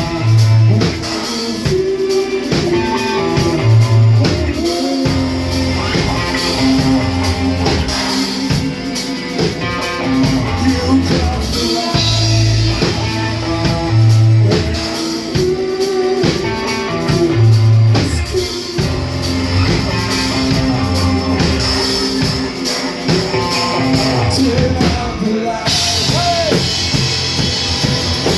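Rock band playing live, with drums, bass and guitars; the cymbals get brighter and louder near the end.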